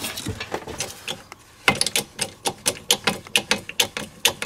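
Hand ratchet wrench clicking in quick runs of strokes, about five clicks a second, with a short pause a little over a second in.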